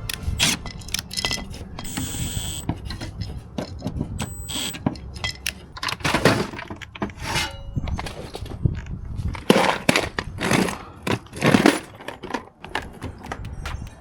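Irregular clicks, knocks and rattles of tools and mounting hardware being handled. Louder clattering scrapes come about six seconds in and three more times between nine and twelve seconds.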